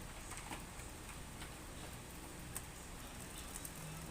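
Faint, scattered clicks of single keys being pressed one at a time on an Asus X541S laptop's newly replaced keyboard while it is tested, over a steady low hiss.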